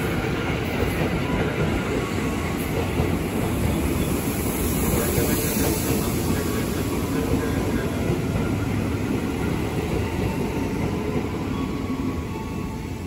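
Ex-JR 205 series KRL Commuter Line electric train moving past the platform, with a steady rumble of wheels on rail and the carriages' running noise. It fades a little near the end as the last car goes by.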